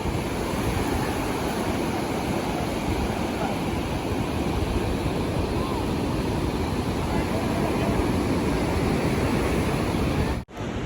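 Tractor-drawn hay baler running steadily, mixed with heavy wind on the microphone. The sound cuts out abruptly for a moment near the end.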